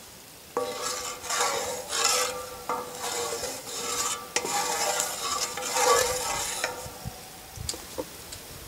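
Hot oil sizzling in a steel skillet over coals as something is stirred and pressed around the pan, with a steady tone under the crackle. It starts about half a second in and dies down after about six seconds.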